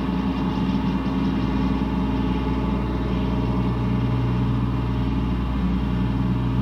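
Ambient electronic synthesizer music: a slow drone of layered sustained tones, with a low note coming in about a second and a half in and holding.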